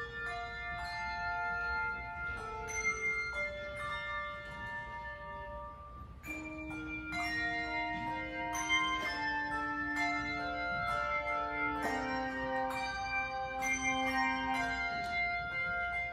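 A handbell choir playing: bells struck in quick succession and left to ring, their notes overlapping into chords. About six seconds in, lower bells join and the sound grows fuller.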